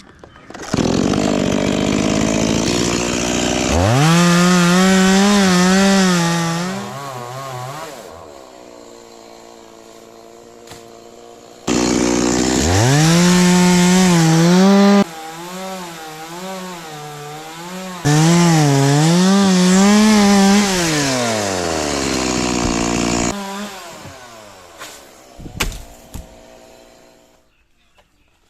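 Stihl two-stroke chainsaw revving to full throttle in three long bursts while cutting wood. Its high engine note wavers as the chain bites and drops back to a lower idle between cuts. Near the end the pitch falls as the saw winds down and fades out.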